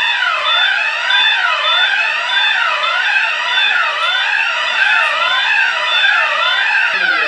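Electronic fire alarm sounders going off, wailing in a quick, evenly repeating rise and fall of pitch, with a high beep pulsing over it about twice a second.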